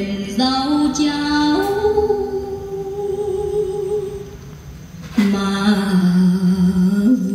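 Music playing back from a TEAC A-6100 reel-to-reel tape deck through a Sansui 7900Z amplifier and loudspeakers: a slow melody of long held notes that step in pitch, softening about two thirds of the way through before a loud new note comes in.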